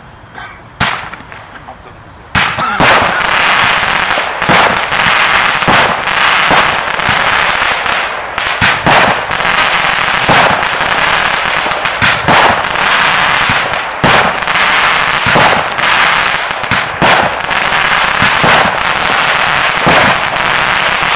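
WECO Alligator firework battery firing: a single bang about a second in, then from about two seconds in a loud, unbroken stream of small bangs and pops with many sharper reports among them.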